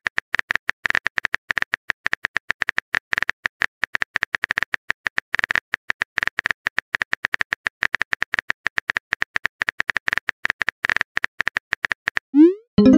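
Simulated keyboard typing from a texting-story app: rapid, irregular taps, several a second, while a message is being typed. Near the end the tapping stops and a short rising whistle-like sweep follows.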